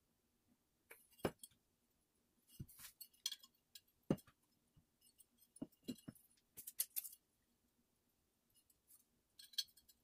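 Scattered light clicks and clinks, in small clusters, from an AR lower receiver and small parts being handled and set down on a bench mat.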